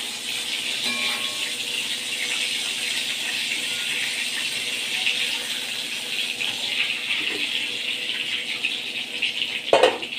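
Pieces of katla fish sizzling in hot oil in a wok, a steady crackling hiss as they are turned with a spatula, with a brief louder clunk near the end.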